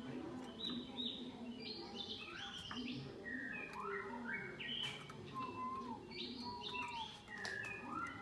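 Ornamental songbird singing a continuous, varied song of short chirps and whistled notes.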